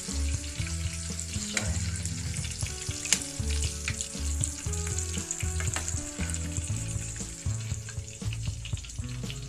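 Small freshwater prawns deep-frying in hot oil without batter: a steady sizzle with sharp pops and crackles of spattering oil, one loud pop about three seconds in.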